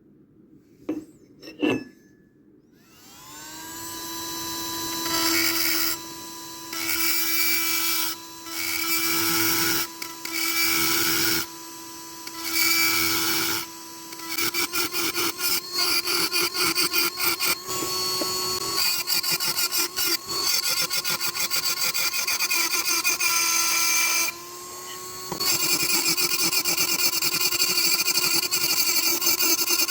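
Handheld power tool motor spinning up after a couple of clicks, then run in short on-off bursts for several seconds, then running steadily with a rapidly fluttering, uneven sound as it works the piece.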